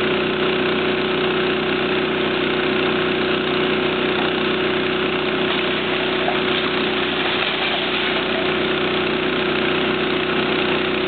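Hydraulic excavator's diesel engine running steadily as the machine works, a constant even drone with no sharp crashes standing out.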